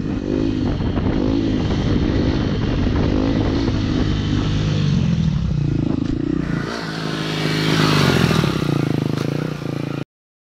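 Dirt bike engine revving up and down, its pitch rising and falling with the throttle as the bike is ridden along a paved road. The sound cuts off suddenly near the end.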